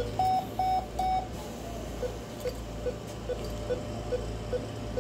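Anaesthesia patient monitor beeping in time with the heartbeat, about two and a half short beeps a second. Near the start it sounds three quick, higher-pitched alarm tones, and then the pulse beeps resume.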